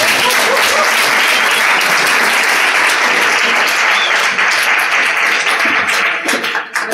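Audience applauding, a dense clapping of many hands that thins out near the end.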